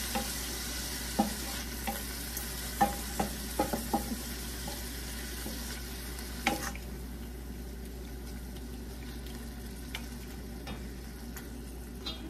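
Sliced pork and onion frying with soy sauce in a stainless steel pan, sizzling steadily while a wooden spoon stirs and knocks against the pan. A quick run of spoon knocks comes in the first few seconds, and the sizzle quiets about halfway through.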